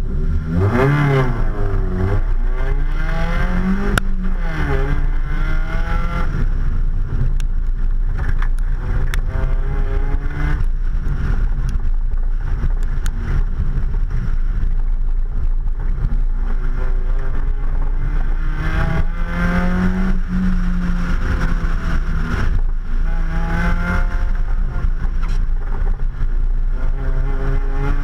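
Mazda Miata's four-cylinder engine pulling hard off the start line, then revving up and dropping back again and again as the car accelerates and lifts between cones on an autocross course, heard from outside the driver's door.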